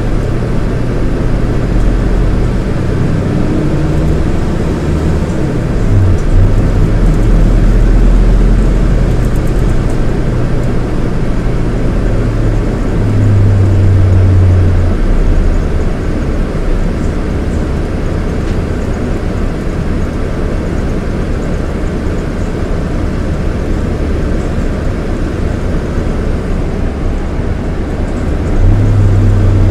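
Scania K230IB coach's Scania DC9 230 hp diesel engine running, loud and steady, its low engine note changing pitch several times as the revs rise and fall.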